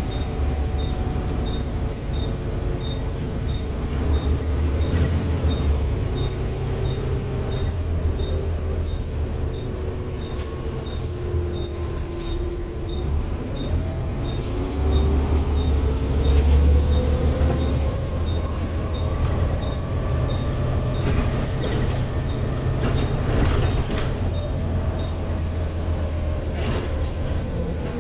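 Interior of a Volvo B7TL double-decker bus on the move: the diesel engine rumbles steadily while a gliding engine-and-transmission whine rises around the middle of the stretch as the bus pulls away. A steady light ticking, typical of the indicator relay, runs until near the end.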